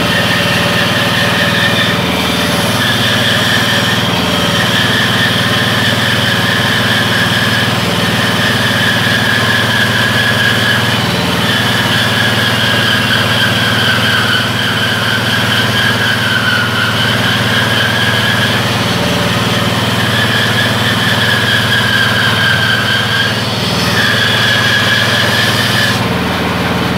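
Small stationary petrol engine running steadily, driving a homemade bandsaw. A higher whine rises and drops out in long stretches and sags a little in pitch at times as the blade cuts through wood.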